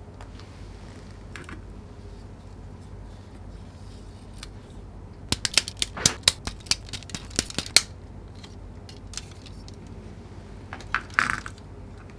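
Plastic parts of a Real Grade Hi-Nu Gundam model kit clicking and snapping as they are handled and fitted onto the figure, with a dense run of sharp clicks in the middle and a few single clicks elsewhere, over a steady low hum.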